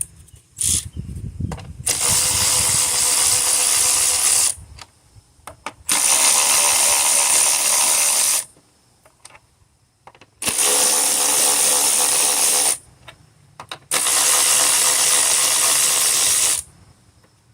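Power tool with a 10 mm socket spinning out the four ignition-coil hold-down bolts one after another: four runs of about two and a half seconds each, with small clicks of the socket and bolts in between.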